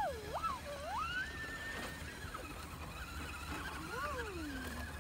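Electric motor and gear drivetrain of a radio-controlled scale rock crawler whining as it climbs rock, the pitch rising and falling with the throttle: a quick up-and-down wobble at the start, a held high whine from about one to two seconds, and another rise and fall near four seconds.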